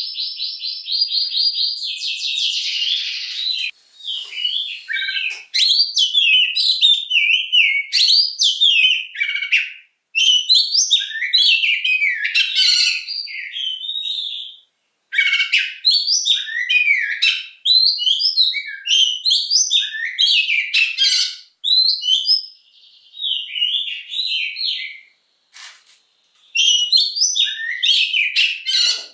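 Oriental magpie-robin singing a long, varied song of rapid whistled and chattering phrases. It opens with a rattling trill, and the song breaks off for a moment a few times.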